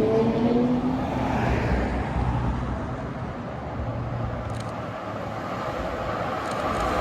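Heritage tram running: a rising motor whine in the first second, then a steady running noise that eases off midway and builds again near the end.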